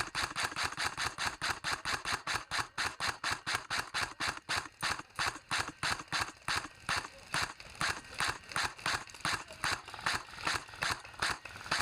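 Running footsteps, even and steady at about four steps a second.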